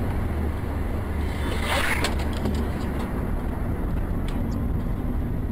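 Steady low road and engine rumble inside a moving car on the highway, with a brief rushing noise about two seconds in and a few faint clicks.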